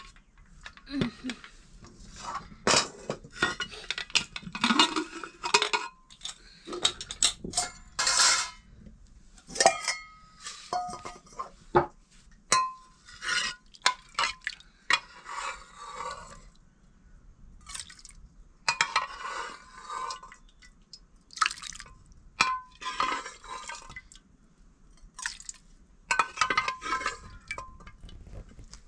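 Metal dishes and utensils clinking and scraping in irregular bursts.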